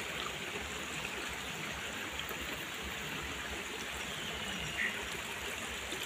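Steady rush of flowing water, an even noise with no pauses.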